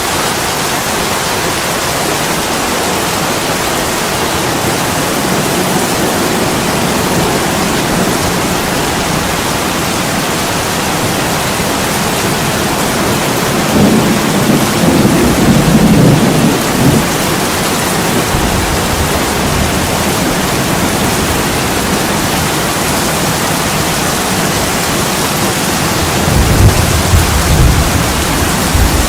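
Steady heavy rain pattering on a window, with two low rolls of thunder: a longer one about halfway through and a shorter one near the end.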